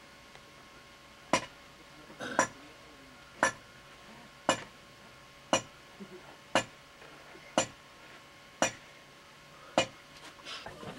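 Sharp clinking clacks in an even beat, about one a second, from a traditional forge's pottery bowl-bellows being pumped.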